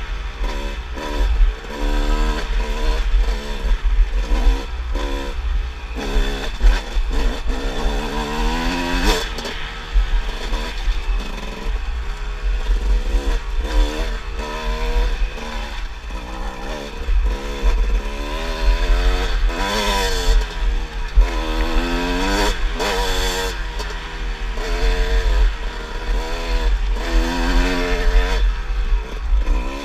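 Kawasaki dirt bike engine on the trail, its pitch rising under throttle and dropping again over and over as the rider accelerates and shifts, heard from a helmet-mounted camera with a heavy low wind rumble.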